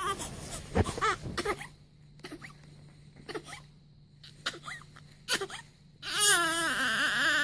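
Newborn baby fussing with short cries and whimpers, then breaking into a loud, sustained, wavering wail about six seconds in. A faint steady low hum runs underneath.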